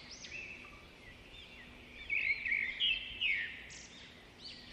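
Small birds chirping and twittering: quick, high, repeated notes, busiest between about two and three and a half seconds in.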